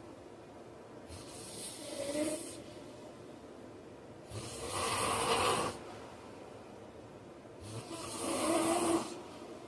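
A man snoring in his sleep: three noisy snoring breaths about three seconds apart, the middle one the loudest.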